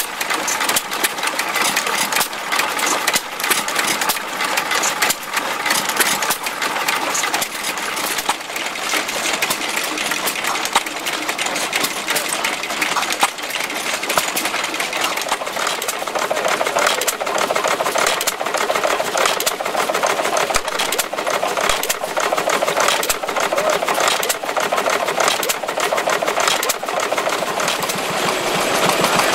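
A small engine running with a rapid, even mechanical clatter made of fast fine ticks, louder in the mid range from about halfway through.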